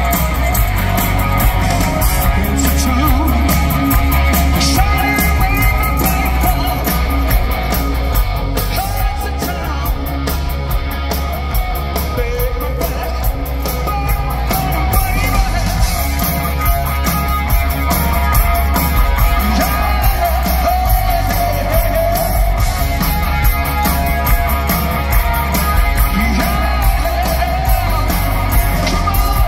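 Live rock band playing at full volume, with electric guitars, bass, drums and a sung lead vocal over heavy, booming bass, recorded from inside the crowd.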